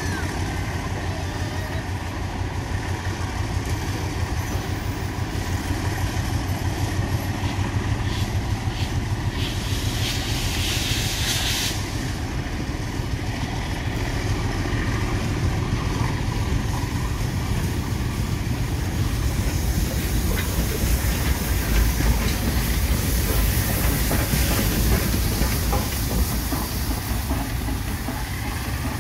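Heritage passenger train rolling past, with a steady rumble and clicking of carriage wheels over the rails. Near the end the rumble grows louder and steam hisses as the AD60 Beyer-Garratt steam locomotive 6029 draws level.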